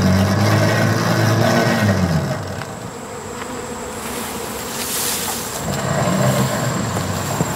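Honeybees buzzing close by, a hum that wavers up and down in pitch. It fades in the middle and comes back near the end.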